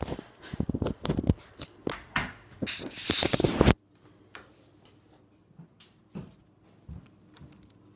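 Handling noise from a handheld phone microphone: a run of knocks and rubbing, then a loud burst of scraping noise that cuts off abruptly just under four seconds in. After that, a few faint clicks.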